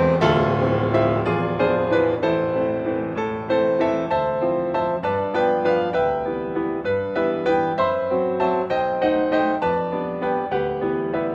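Grand piano played solo: a continuous flow of notes in a steady, even pulse, with chords sounding over a sustained bass.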